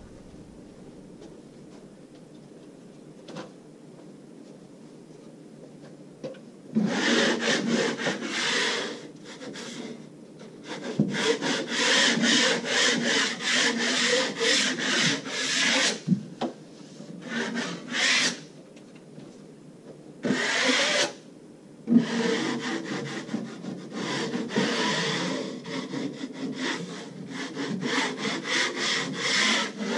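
Rapid back-and-forth rasping strokes of hand-sanding set joint compound on plasterboard joints, starting about seven seconds in and going in several runs with short pauses.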